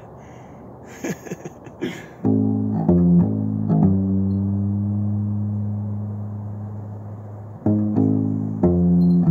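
Electric upright bass plucked: a couple of faint clicks, then a few quick notes about two seconds in, one long low note left to ring and slowly fade, and more plucked notes near the end.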